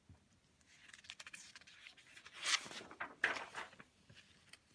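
Sheets of paper rustling and sliding against each other as pages are handled, with a few light clicks; the loudest rustles come about halfway through.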